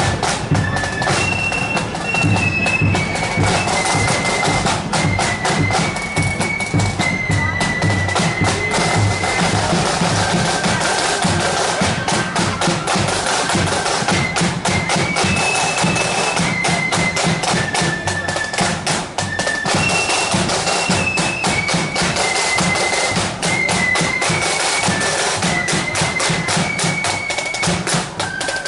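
Marching band playing a tune: a single high melody line on wind instruments, stepping from note to note, over a steady march beat of snare and bass drums.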